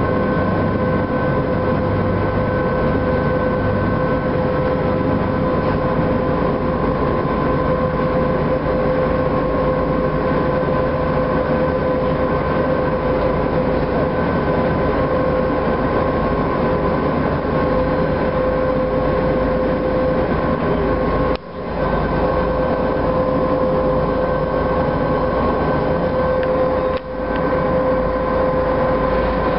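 Car ferry's engines running at a steady drone with a constant hum. The sound drops out briefly twice, about two-thirds of the way in and again near the end.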